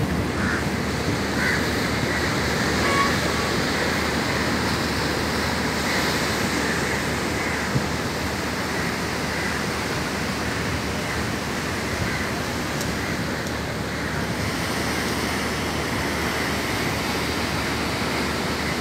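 Ocean surf breaking along the shore: a steady rushing wash of waves.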